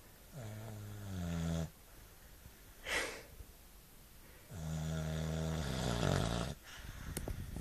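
Staffordshire bull terrier snoring in its sleep: two long, rasping snores about four seconds apart, each dipping in pitch as it starts, with a short breath between them.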